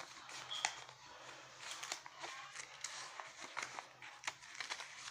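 Irregular rustling and light clicks of things being handled close to the microphone, over a faint steady low hum.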